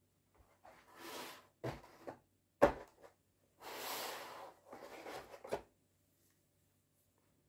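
Cardboard box and moulded pulp tray handled: rubbing scrapes and a couple of sharp knocks, the loudest about two and a half seconds in, then the plastic airsoft pistol lifted out of the pulp insert with a scrape and a click near the end.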